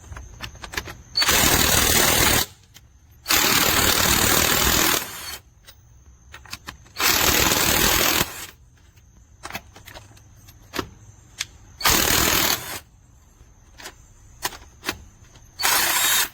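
Cordless impact wrench hammering in five bursts of about a second each, with small clicks and knocks in the pauses between them.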